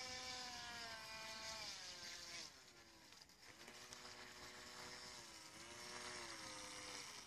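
Small electric motor of a Buddy Toys FT007 RC speedboat whining faintly as the boat runs on the water. Its pitch slides down about two seconds in, holds, then drops again near the end.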